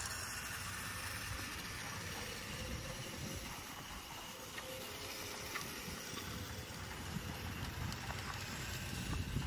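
Tyco RC motorcycle's small electric motor running as the toy drives across pavement, heard faintly under steady outdoor hiss.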